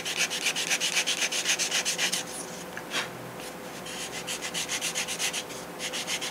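80-grit sandpaper rubbing on a soft balsa block in quick back-and-forth hand strokes, about six a second, shaping the edge to a point. About two seconds in the strokes stop for over a second, with a single click, then start again.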